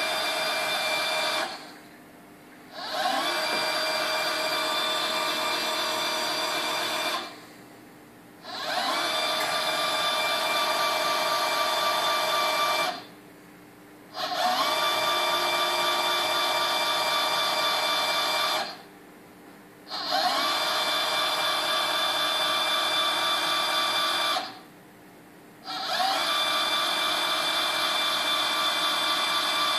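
CNC machine's axis drive whining as it moves the carriage along its ball screw. It runs in stretches of about four seconds with a stop of about a second and a half between them, about every six seconds, and the pitch rises briefly each time it starts.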